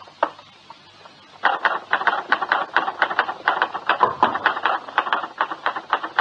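Typewriter keys clacking in quick, uneven strokes, about eight a second, starting about a second and a half in after a single click.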